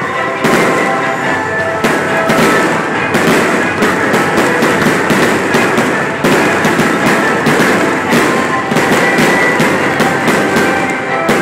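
A fireworks display: rapid bangs and crackling pops in quick succession with a dense fizzing of sparks, over loud music.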